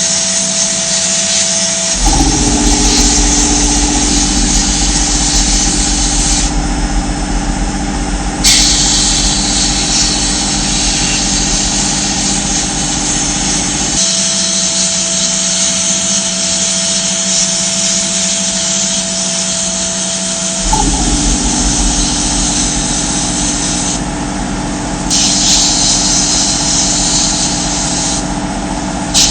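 A power tool running steadily with a hiss, its hum and tone changing a few times as it is loaded and eased off.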